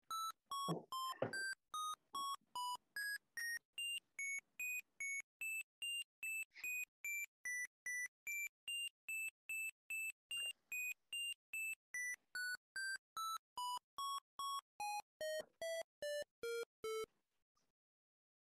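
Sonification of a Grafana time-series graph: a quick run of short synthesized beeps, about three a second, each note's pitch set by a data value. The pitch climbs to a high plateau through the middle, then steps down lower near the end, where the notes stop.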